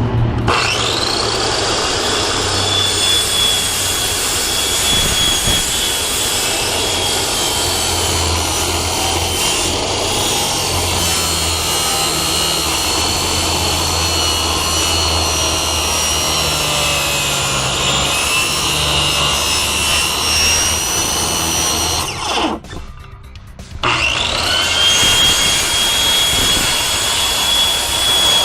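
A 7-1/4-inch circular saw set to full blade depth, cutting through a Rapid Wall skirting panel. Its motor whine comes up to speed at once and holds steady, wavering a little, for about twenty seconds. It stops for a moment, then starts again and cuts on.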